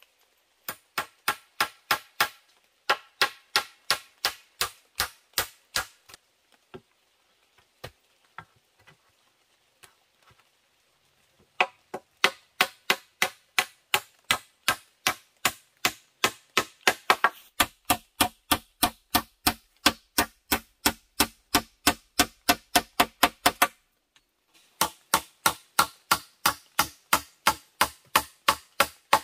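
Rapid, evenly spaced chopping strikes on wood, about three or four a second, in runs broken by short pauses.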